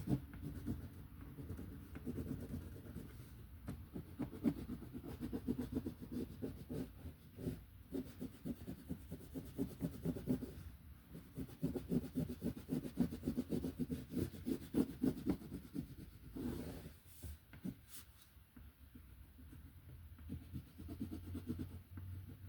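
Coloring strokes scratching rapidly back and forth on paper, with a short pause about halfway through and a longer pause a few seconds before the end.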